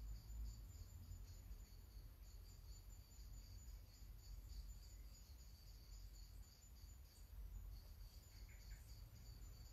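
Near silence: faint crickets chirping in a steady, pulsing high trill over a low background rumble.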